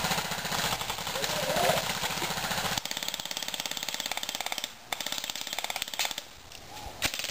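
Airsoft electric guns firing on full auto: a fast, even rattle of shots at about fifteen a second, in long bursts, the clearest from about three seconds in to just before five seconds, with a shorter burst near the end.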